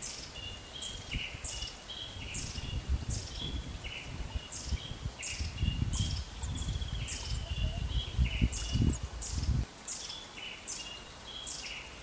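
A bird calling over and over, a short high note about twice a second with lower chirps in between. Wind rumbles on the microphone until it drops away near the end.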